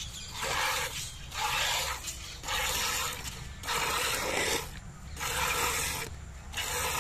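Cow being milked by hand: streams of milk squirting into a metal pail of frothy milk, a hissing squirt about once a second, six in all.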